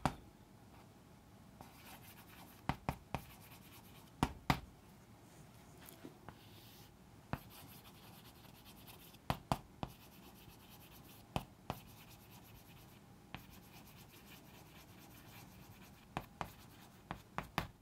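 Chalk writing on a chalkboard: faint strokes broken by short sharp taps as the chalk strikes the board, coming in small clusters every second or two.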